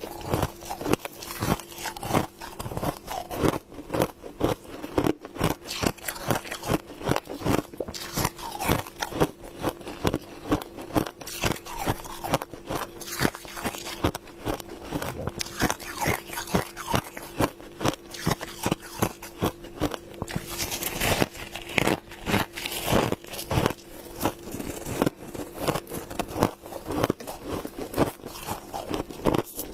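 A person chewing mouthfuls of humidifier frost: rapid, crisp crunching bites, one after another without a break, over a steady faint hum.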